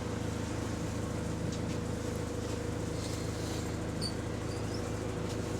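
Single-deck bus engine running steadily, heard from inside the passenger cabin as a low drone with a faint steady whine, the bus in limp mode. A few short high squeaks come near the end.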